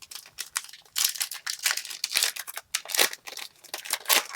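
Trading cards being handled and flipped through: a quick run of dry, papery slides and flicks, with some crinkling.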